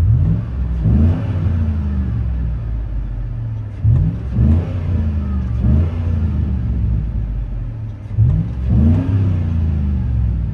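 2005 Chevy Tahoe's V8 revved in park, heard inside the cabin through its Flowmaster Flow FX muffler on a single 2.5-inch exhaust. The engine is blipped up several times, mostly in quick pairs, and drops back to a steady, deep idle between.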